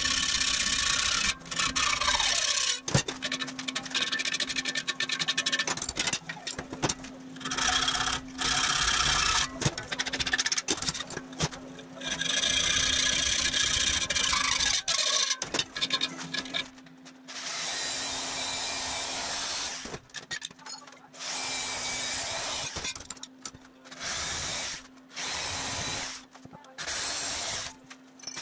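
Hand hacksaw cutting aluminum square tube clamped in a bench vise. The sawing comes in stretches of a second to several seconds that start and stop abruptly.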